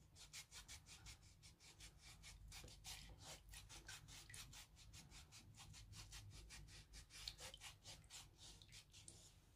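Faint, rapid rasping of a hand-held foot scrubber rubbed back and forth over the sole of a wet, soaked foot, about five strokes a second, scrubbing off dead skin.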